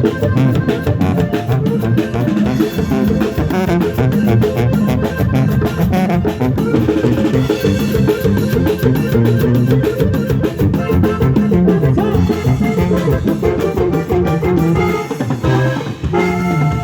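A live cumbia band plays an instrumental passage of a medley, driven by drum kit and percussion. The music briefly thins near the end as the passage changes.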